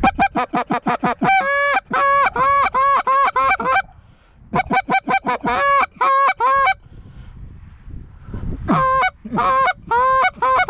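Geese honking and clucking in rapid, close, loud runs of short notes, three bursts with short pauses between them.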